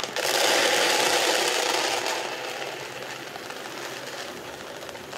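Dry dog kibble poured from a plastic bag into a plastic feeder hopper and spilling into the bowl: a dense rattling rush of pellets, loudest for the first two seconds, then fading to a lighter trickle.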